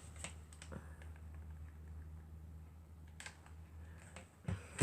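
Light, scattered clicks and taps from small craft materials being handled, with a couple of sharper clicks about three seconds in and near the end, over a steady low hum.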